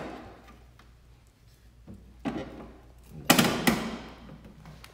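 Hard plastic clunks from the battery bay of a Toro 60 V electric snow blower as the battery and its housing are handled: a light knock about two seconds in, then a louder double thunk a little over three seconds in.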